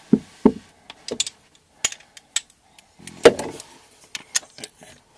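Metal clicks and clinks of a socket wrench being handled and fitted onto a faucet's 8 mm mounting nut, with a few duller knocks, the loudest about three seconds in.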